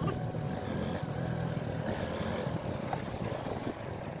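Motorcycle engine running steadily while riding along a gravel dirt track, with wind and tyre noise.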